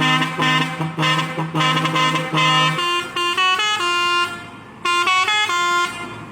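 Four-foot musical air horn blasting a tune: quick repeated blasts on one low note, then from about three seconds in a melody of short, higher notes stepping up and down, broken by two brief pauses.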